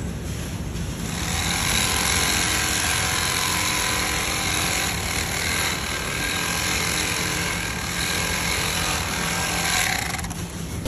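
Handheld electric bag-closing sewing machine running steadily as it stitches the top of a filled woven sack shut. The sound builds up about a second and a half in and drops away briefly near the end.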